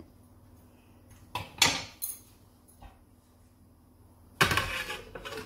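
Cookware clatter: a single sharp knock about a second and a half in, then a glass lid set down on a wok, clattering briefly as it settles near the end.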